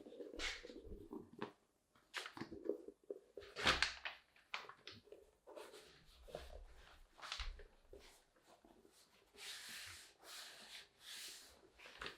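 Hands handling packaging and leather during an unboxing: irregular rustles, taps and light scrapes, with a run of longer swishing rustles near the end.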